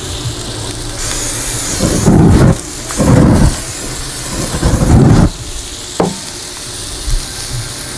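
Beef heart kebabs and potatoes sizzling on a hot grill, with three bursts of aerosol cooking spray hissing onto the food about two, three and five seconds in. A sharp click follows about six seconds in.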